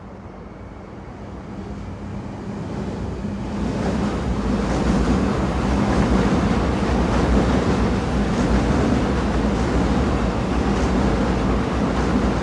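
Railway train running: its rumble swells over the first four or five seconds, then holds loud and steady with a low drone and faint clicks.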